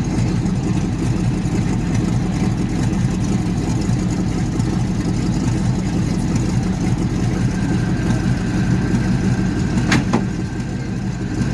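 Sherman tank engine running steadily, a low, even rumble. A single sharp click about ten seconds in, and a faint steady whine joins in the second half.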